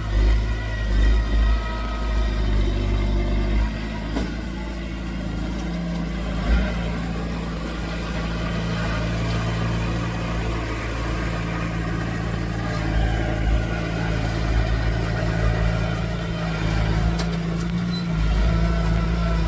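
Diesel engine of heavy earthmoving machinery running steadily under work, with a low rumble and slight shifts in engine pitch, and a brief thump about six seconds in.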